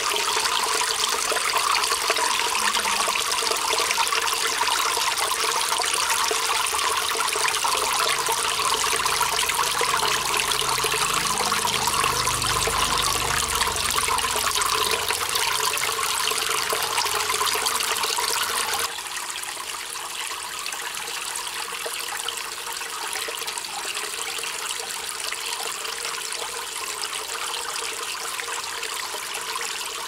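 Small cement waterfalls spilling water into an aquarium, a steady splashing trickle; it drops a little in level about two-thirds of the way through.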